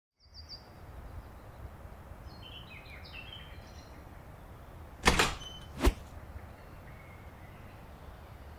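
Low steady background rumble with a few short high chirps in the first few seconds, then two sharp knocks a little under a second apart.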